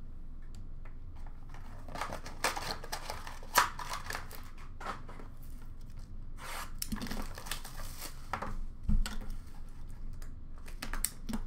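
Rustling and crinkling of trading-card pack wrappers and packaging as hands dig through a bin of packs and tear one open, in irregular handling noises.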